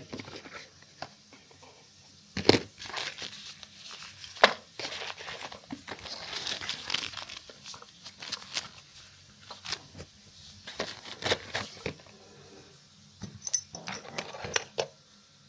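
Cardboard and plastic packaging being handled: rustling and crinkling, broken by scattered knocks and clicks, with a run of sharp, high clicks near the end.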